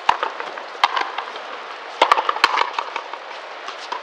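Frontenis rally: a rubber ball struck by stringed rackets and smacking off the fronton wall, sharp echoing cracks, one at the start, one a little under a second in and a quick cluster of three about two seconds in.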